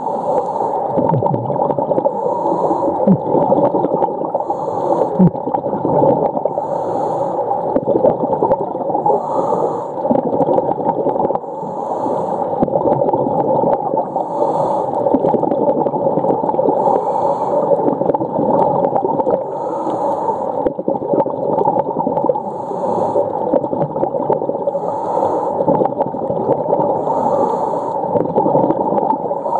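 Underwater sound of humpback whales calling through steady water noise, with a few short low rising calls in the first few seconds.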